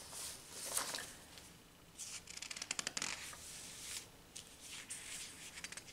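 Faint rustling of paper pages being handled, with a quick run of light clicks about two to three seconds in.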